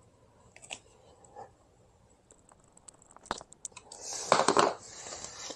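Small clicks and ticks of a screwdriver and metal screws as the screws go back into an electric scooter's blinker cover, with a sharper click a little after three seconds in. About four seconds in, a second of crackly rustling and scraping follows as parts are handled.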